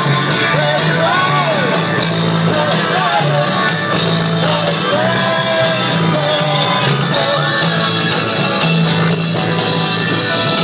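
Rock song playing, with a sung vocal over a steady bass line.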